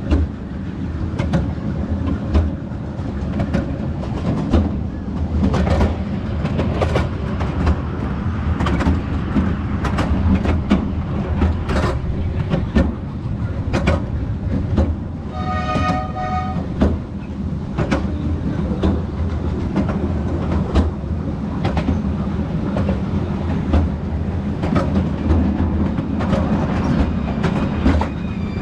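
Miniature railway train running along its track: a steady rumble with frequent clicks of the wheels over the rail joints. A brief pitched tone sounds about halfway through.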